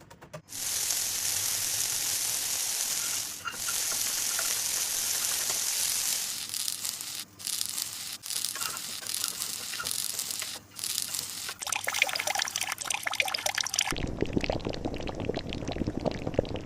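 Water pouring steadily, broken by a few brief gaps and growing more spattery toward the end. About 14 s in, it changes abruptly to a lower, crackling sound.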